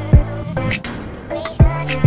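Outro music with a beat of hard hits over a deep bass line.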